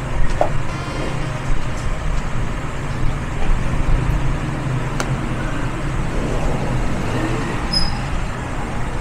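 Steady low background rumble, with a single sharp click about five seconds in.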